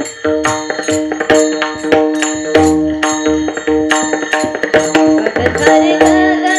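Devotional kirtan music without singing. Small brass hand cymbals (taal) are struck in a steady beat of about two to three clashes a second, over sustained held notes and a low drum.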